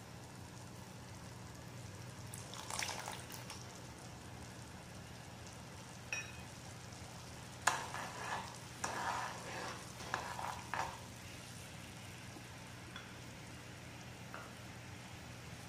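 Sugar syrup bubbling in a nonstick pan while a metal spoon stirs it, scraping and clinking against the pan in short bursts: once briefly near the start, then for a few seconds from about halfway through, opening with a sharp click. A steady low hum sits underneath.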